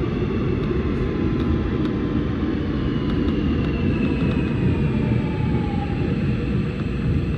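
Seoul Subway Line 7 electric train braking into a station: a heavy steady rumble of wheels on rail, with a whine that falls in pitch as the train slows to a stop.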